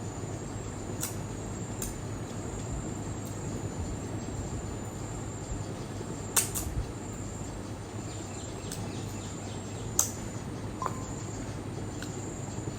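Crickets trilling steadily and high-pitched in the background, broken by a few sharp clicks.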